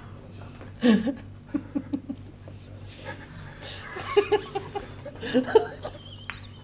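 Men laughing in short, broken bursts of repeated syllables, with quieter chuckles between.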